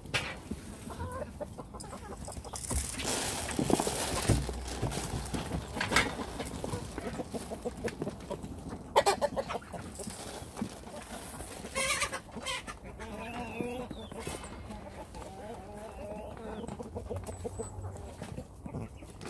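Domestic hens clucking softly as they eat from a metal feed pan, with rustling and a few sharp knocks. The short wavering clucks come mostly in the second half.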